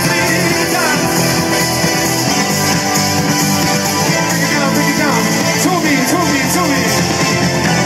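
Live pop-rock band music played over a concert PA at an open-air stage, heard from within the audience, with guitar and some singing.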